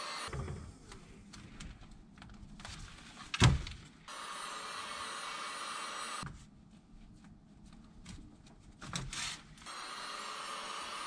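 Handheld electric heat gun running in spells, its fan blowing with a steady hiss and whine. It cuts out just after the start, runs again from about four to six seconds in, and starts once more near the end. Between spells there are small handling knocks, and one loud thump comes about three and a half seconds in.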